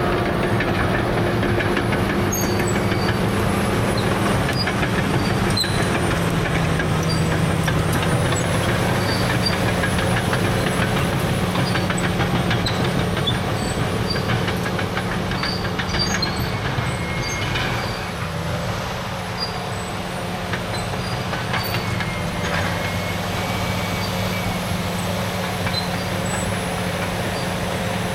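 Caterpillar D6R dozer's C9 diesel engine running steadily under working load, with a faint high whine above it; the engine note drops a little about eighteen seconds in.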